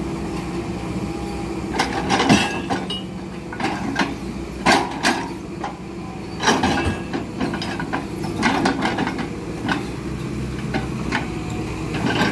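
Hitachi hydraulic excavator's diesel engine running steadily while its grapple handles logs onto a truck bed, with a series of sharp wooden knocks and clunks as the logs strike the load and each other.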